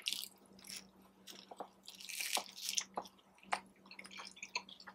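Close-up eating of a crunchy taco in a lime-flavoured shell: irregular crunching and wet mouth clicks, with the biggest crunch about two seconds in. The shell gives a little chew yet still crunches, which the eater takes for the shell being slightly stale.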